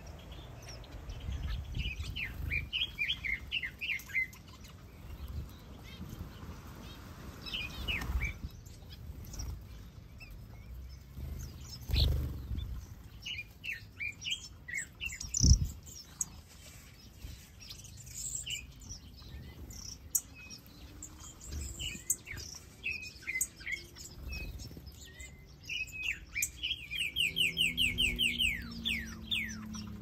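Small aviary birds, finches and softbills, chirping and calling in scattered bursts, with a fast run of repeated high notes near the end. A single sudden thump about halfway through is the loudest sound.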